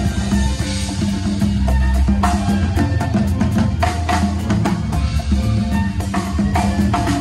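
Live band playing a Puerto Rican bomba groove: congas and drum kit with electric bass underneath, in a steady rhythm.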